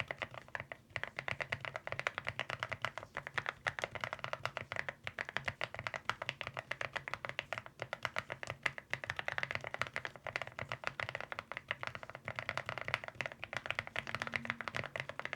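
Fast, continuous typing on an AULA F99 mechanical keyboard with Akko Bittersweet tactile switches and MOA-profile keycaps, many keystrokes a second. The keystrokes have a fairly low pitch and a muted, semi-silent feel, with only a light tactile bump.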